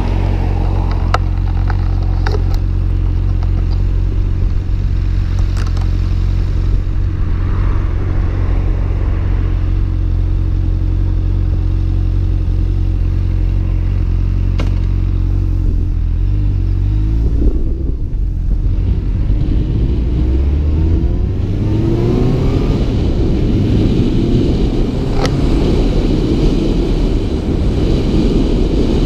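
Honda Hornet CB600F's inline-four engine idling steadily, then pulling away about sixteen seconds in and revving up through the gears, its pitch climbing after each change. Wind noise on the helmet-mounted microphone grows as the bike gathers speed, with a few sharp clicks along the way.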